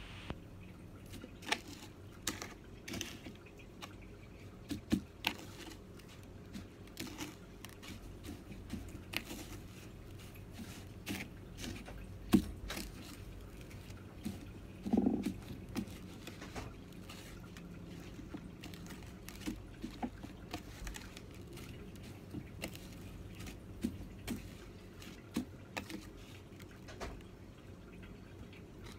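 Hands breading pork chops: irregular soft taps, pats and clicks as the meat is dipped in egg, pressed into breadcrumbs and set into a stainless steel bowl, over a steady low background hum. One sharper knock comes about twelve seconds in, and a brief louder low sound a few seconds later.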